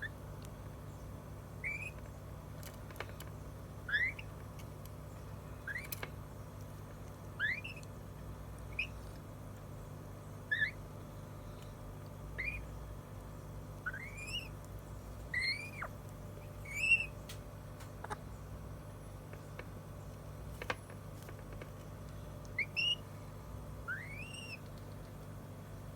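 African grey parrot giving short, upward-sliding whistles, some curling back down at the top, one every second or two, over a steady low hum.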